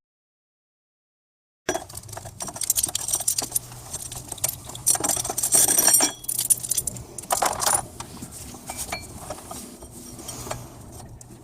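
Dead silence for under two seconds, then metal hand tools and parts clinking, rattling and scraping during work under the hood, with louder clusters of clatter in the middle.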